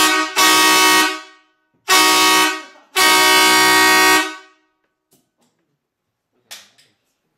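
Twin-trumpet pneumatic air horn, a railroad-style horn fed by a compressed-air hose, sounding in loud blasts: the end of one, then three more, the last a little over a second long. A faint knock comes near the end.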